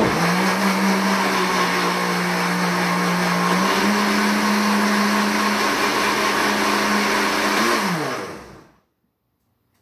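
Countertop blender motor running, blending a milk smoothie: a steady hum that steps up a little in pitch about four seconds in, then winds down and stops near the end.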